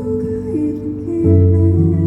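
Live music from a singer-songwriter's stage performance, held notes; a fuller, lower chord comes in a little past a second in.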